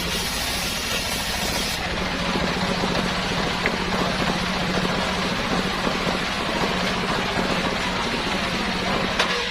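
Engine of a homemade circular sawmill running steadily, with a high hiss that falls away about two seconds in.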